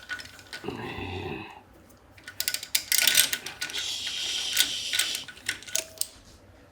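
Quick metallic clicking and rattling of hand tools and small engine parts being handled, densest in the middle, with a brief low tone about a second in.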